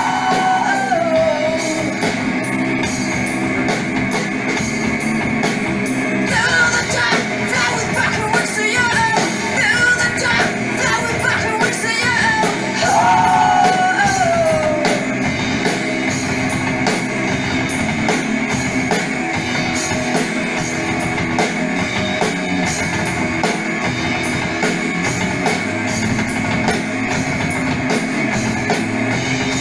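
Rock music with drums and guitars. A singing voice carries the melody at the start and again from about six to fifteen seconds in, and the rest is instrumental.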